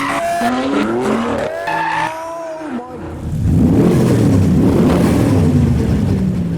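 Cars being driven sideways through a corner at speed: engines revving with rising, gliding pitch, with some tyre squeal. About three seconds in, a louder, sustained burst of engine noise takes over as a car powers through.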